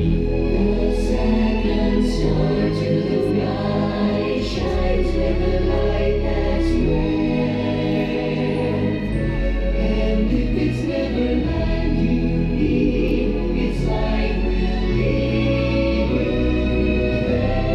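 Fireworks-show soundtrack music: a choir singing held chords over deep bass notes, the chords changing every second or two.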